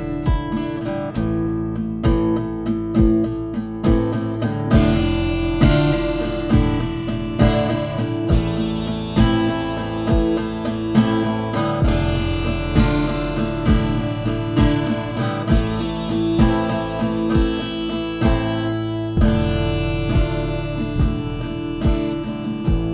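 Band music led by a strummed acoustic guitar in a steady rhythm.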